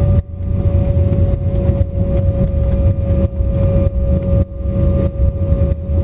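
Cabin noise of an Embraer 195 on its landing roll-out: a heavy low rumble from the wheels and engines, with a steady engine whine that falls slightly in pitch as the jet slows.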